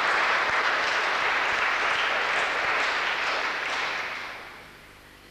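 Audience applause in a concert hall, a dense steady clapping that dies away over the last second or so.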